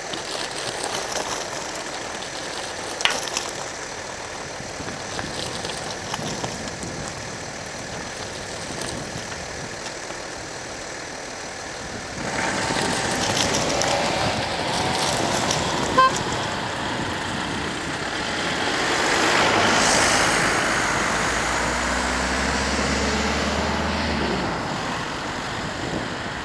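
Motor traffic passing on an asphalt road, the noise swelling to its loudest a little past the middle, with one short beep midway. Toward the end a truck's engine is heard running as it approaches.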